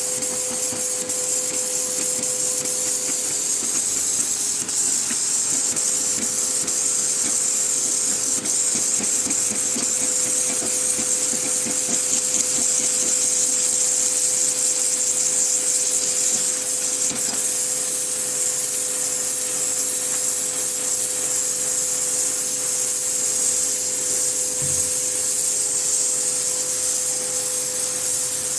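Pressure washer running: a steady high hiss of the water jet with an even hum from the machine underneath.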